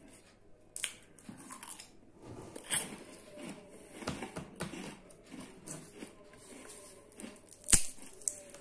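Close-up biting and chewing of crunchy biscuits, with scattered crunches and a few sharp clicks. The loudest is a single sharp knock near the end.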